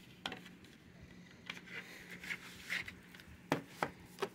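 Plastic Blu-ray case being handled and slid into its cardboard slipcover: brief scraping with several sharp clicks and taps of plastic, the loudest a few clicks near the end.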